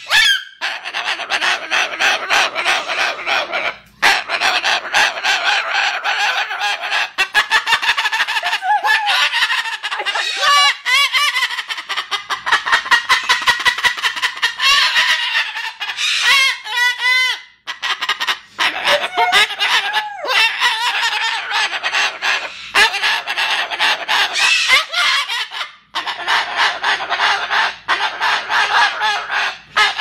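Moluccan cockatoo making strange noises: a near-continuous stream of rapid, pulsing, harsh calls broken by brief pauses, with a few wavering, rising-and-falling notes about ten and again about seventeen seconds in.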